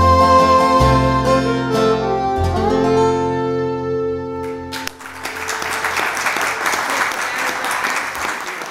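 Acoustic guitar, fiddle and upright bass play the closing notes of a song and let the last chord ring out. About five seconds in the music stops and the audience applauds.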